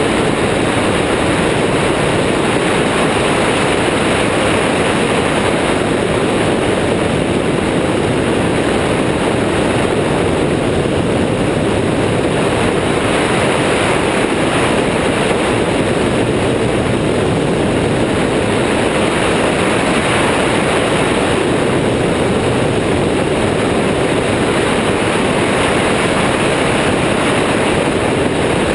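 Steady rush of airflow and engine noise from an Airborne XT Tundra weight-shift microlight trike in cruise flight, as heard from a camera mounted on its wing.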